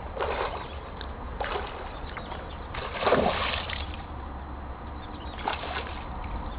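Water splashing and sloshing in a few short bursts, the loudest about three seconds in, over a steady low hum.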